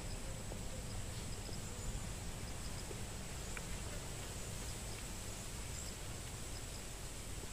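Steady high-pitched insect drone with a low rumble underneath and a few faint short chirps.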